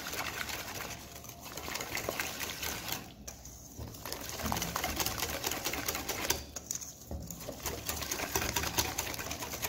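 Wire whisk beating flour, egg and water batter in a stainless steel bowl: a fast run of clicks and scrapes against the bowl. It pauses briefly about three seconds in and again about six and a half seconds in.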